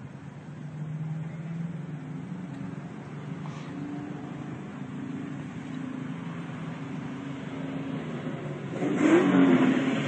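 Road vehicle engines running steadily, with a louder swell of engine noise about nine seconds in as a car revs or goes by.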